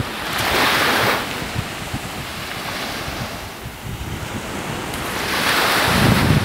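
Small waves washing onto a sand beach, swelling twice, with wind gusting on the microphone. The wind adds a low rumble near the end.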